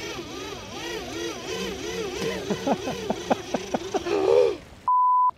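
An edited-in warbling tone that rises and falls about twice a second, with a run of sharp clicks over its second half. It cuts off suddenly into silence, then comes a short, loud, steady bleep tone.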